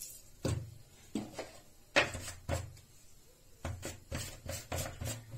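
About a dozen sharp, irregular clicks and light knocks, the loudest about two seconds in.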